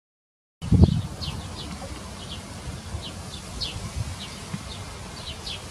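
Outdoor field recording: short high downward chirps repeat irregularly, a few a second, over a steady low rumble. A loud low knock comes just as the sound begins.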